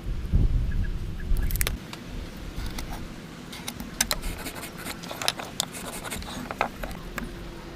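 Irregular sharp clicks and taps, with a louder low rumble in the first two seconds.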